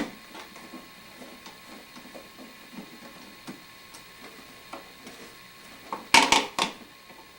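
Small clicks and scrapes of hand work at a wall light switch as its cover plate is taken off, with a louder clatter of several knocks about six seconds in.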